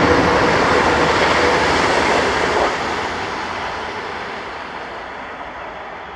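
A passing train's running noise on the rails, loud at first and fading steadily as it draws away.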